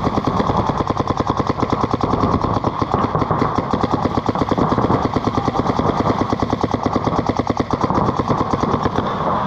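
Paintball markers firing reball rounds in rapid, continuous streams: a dozen or more pops a second without letup.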